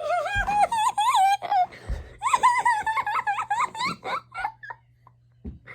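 A boy's long, high-pitched wailing cry, then a broken run of short giggling laughs, with a couple of dull thumps.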